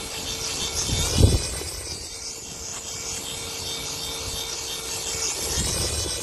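Small LED 'disco ball' sphere toy drone buzzing as its propellers keep it aloft, a steady whine with a faint hum under it. Bursts of low rumble come about a second in and again near the end.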